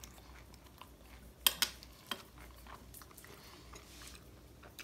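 Fork and steak knife clinking against a china plate a few times, with two sharp clicks close together about a second and a half in and another shortly after.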